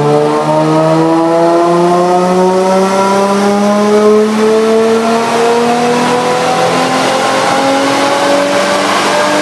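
Supercharged 2003 Nissan 350Z's 3.5-litre VQ V6 at full throttle on a chassis dyno in fourth gear, revs climbing slowly and steadily through a power pull.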